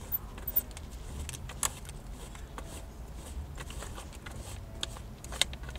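Faint rubbing and scattered small clicks of a Nissan 350Z's worn leather shift knob being twisted off its gear lever by hand, over a low steady background rumble.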